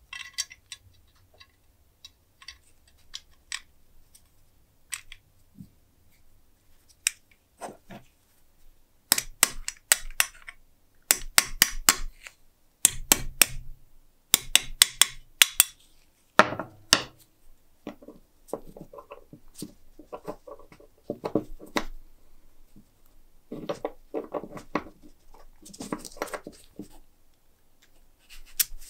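Quick runs of sharp taps as a wooden stick knocks on the steel shaft and gear of a Boston hand-crank pencil sharpener, driving the part home during reassembly. These are followed by softer clinking and rattling of the steel helical cutter being fitted into its frame.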